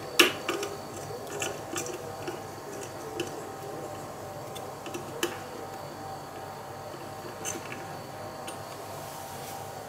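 Light clicks and ticks of a small screwdriver turning the spring-loaded cooler screws into a graphics card, several close together in the first couple of seconds, then more spaced out.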